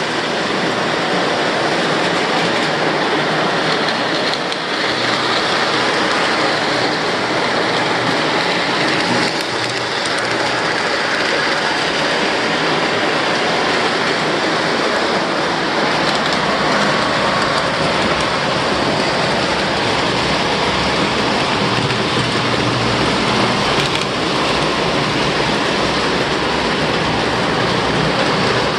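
Several O-gauge model trains running at once on three-rail track: a steady rumble and clatter of wheels and motors.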